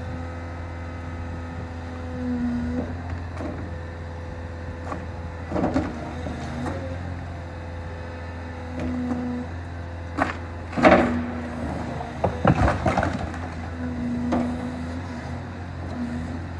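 Demolition excavator's diesel engine running steadily, with a higher hydraulic hum coming and going, as its grab bites into a brick and concrete-block wall. Masonry cracks and rubble falls in several bursts, the loudest about eleven seconds in.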